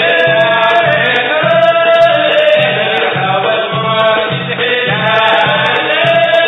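Sudanese Sufi madeeh praise song: a chorus of voices singing together over a steady drum beat of about two beats a second.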